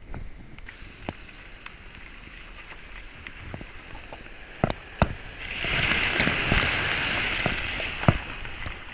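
Car tyres rolling over a gravel road, with scattered clicks of stones striking the car. About five and a half seconds in, the car splashes through a shallow stream ford for about two and a half seconds, throwing water up against its side.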